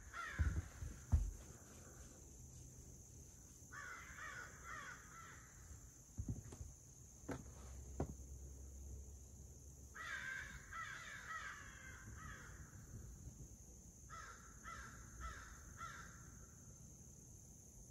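Birds calling in four bouts of rapidly repeated calls from the surrounding woods. A few sharp knocks in the first second or so, and a few more near the middle.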